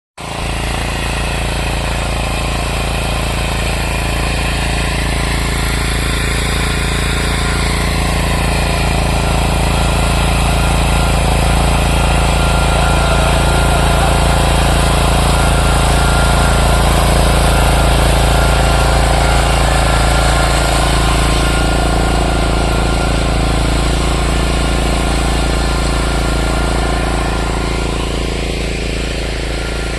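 Tractor engine running steadily while ploughing, growing louder toward the middle and easing off near the end.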